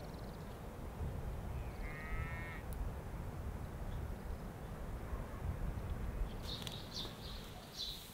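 Outdoor ambience with a steady low rumble. A bird gives one call about two seconds in, and small birds chirp in short high notes over the last two seconds.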